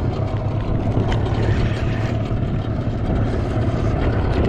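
Boat engine running steadily, a constant low hum under a hiss of wind and water.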